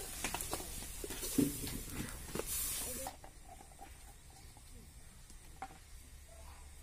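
Food sizzling and hissing in a hot wok over a wood fire, with light clicks and scrapes of the ladle; the hiss cuts off suddenly about three seconds in, leaving a faint background with a few small taps.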